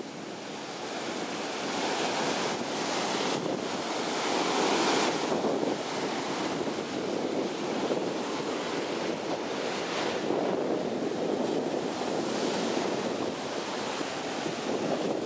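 Ocean surf breaking and washing up a sandy beach, a steady rushing that swells louder about five seconds in, with wind buffeting the microphone.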